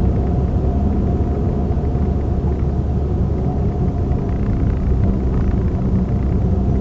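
Steady low rumble of a car driving in city traffic, heard from inside the cabin: engine and road noise.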